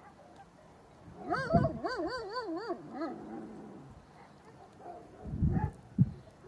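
A dog's whine from a distance, its pitch wavering up and down several times over about a second and a half. A few short low rumbles come before and after it.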